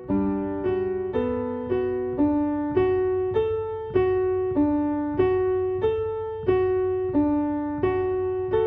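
Solo piano music: notes struck about twice a second in an even rhythm, each fading before the next.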